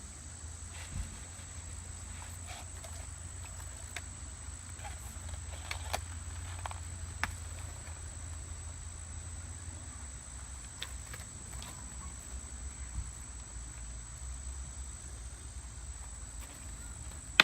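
Insects trilling outdoors: one steady, unbroken high-pitched tone over a low steady rumble, with a few faint clicks.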